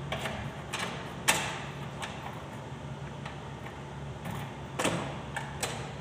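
Door lock and lever-handle mechanism being worked, giving a handful of sharp metallic clicks: the loudest comes about a second in, and a pair follows near the end. It is the new lock cylinder being tested.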